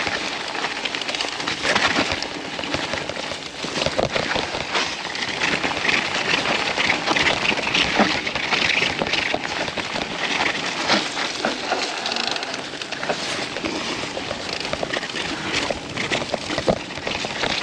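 Mountain bike riding down a rough, muddy trail: a steady, dense clatter of tyres, chain and frame over the ground, thick with small knocks and rattles.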